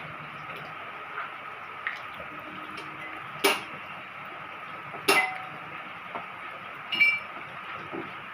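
Steady hiss of rain with three sharp clinks of tableware, about a second and a half apart; the last, near the end, rings briefly.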